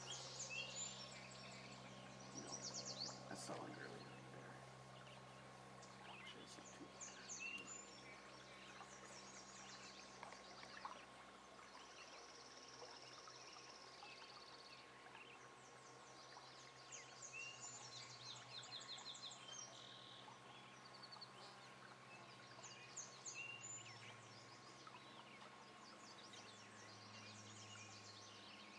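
Faint birdsong: several small birds chirping and trilling again and again, over a steady low hum.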